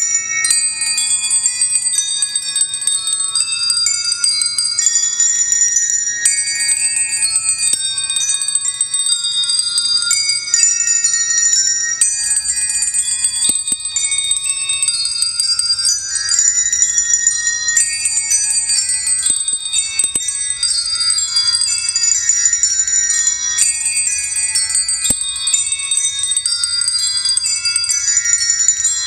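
Small handbells rung by several players at once: many high bell notes overlapping and ringing on, with new notes struck every second or so.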